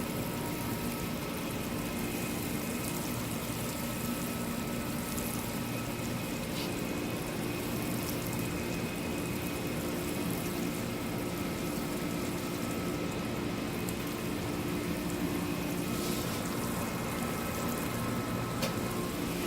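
Water falling in a fine, steady shower from a metal watering can's rain-spout rose onto soil and small sprouts, with a faint steady hum beneath.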